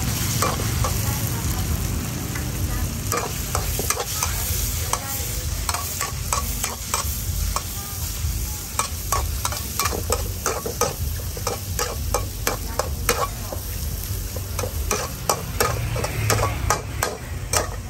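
Metal spatula scraping and clanking against a steel wok as squid and shrimp are stir-fried, over the sizzle of the frying. The strokes come quicker and closer together in the second half, with a steady low rumble underneath.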